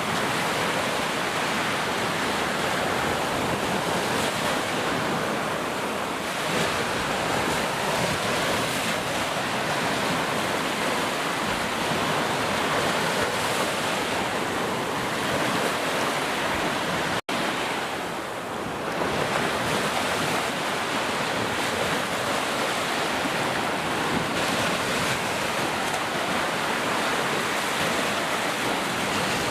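Heavy rain falling steadily in a dense, even hiss, broken by a brief dropout a little past halfway through.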